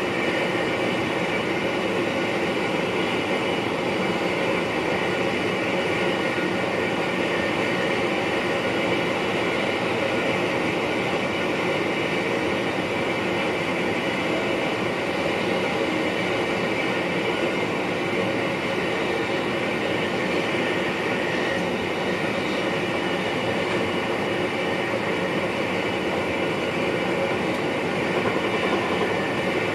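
NS VIRM double-deck electric train running steadily, heard inside the driver's cab: an even rumble of the train on the rails with several steady tones over it.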